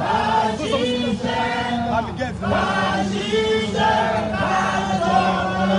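Many voices singing together in chorus, a crowd chanting a song in unison.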